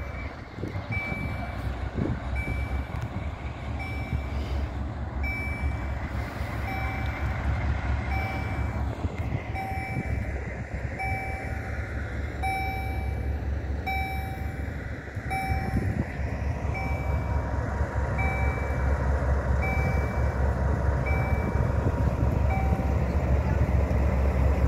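A level crossing warning signal beeps about once every three-quarters of a second while the rumble of an approaching diesel freight train on the LHS broad-gauge line grows steadily louder.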